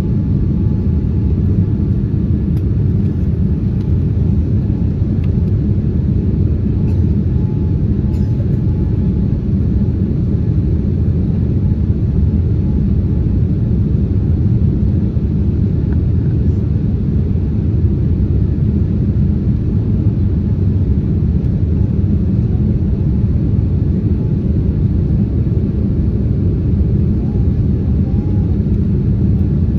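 Steady low rumble of engine and airflow noise inside the cabin of a Boeing 787-9 airliner on final approach, heard from a window seat over the wing.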